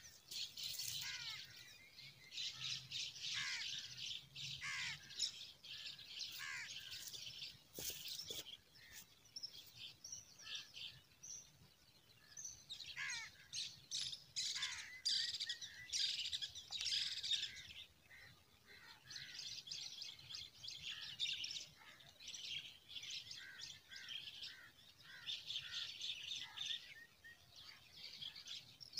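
Songbirds chirping and calling in a busy chorus, many short high chirps with some calls sliding down in pitch, coming in bursts with short lulls between.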